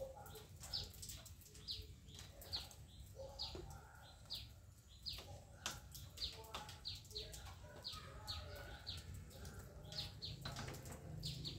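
Small birds chirping: many short high chirps, each falling in pitch, coming irregularly at about two a second.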